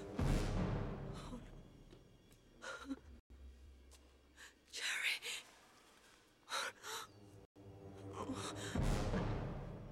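A person gasping and breathing hard in short ragged breaths, over low swelling rumbles near the start and again near the end.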